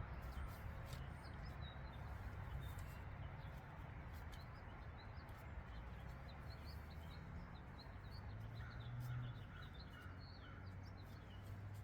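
Faint birds chirping over a low, steady background rumble, with a few light clicks.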